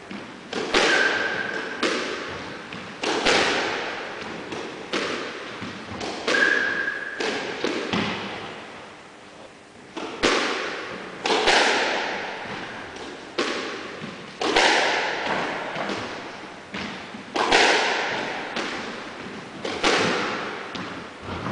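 Squash rally: the ball struck by rackets and smacking off the court walls, roughly one hit a second, each hit ringing out in the court's echo. There is a brief pause a third of the way through and a couple of short squeaks.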